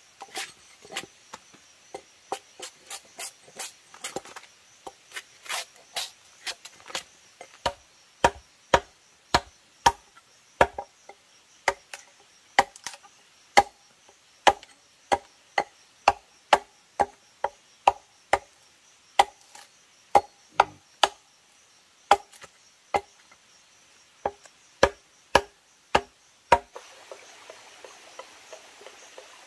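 A blade chopping into wood in steady, repeated blows, roughly two a second, that stop about 27 seconds in. A steady high insect drone runs behind the blows.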